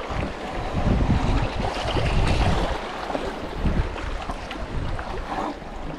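Wind gusting on the microphone over lapping sea water, with the splash of kayak paddle strokes.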